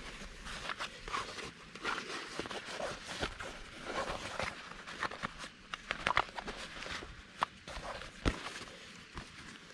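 Canvas bucket bag rustling and crinkling as hands open it and reach inside, with several short, sharp taps and knocks of gear inside it.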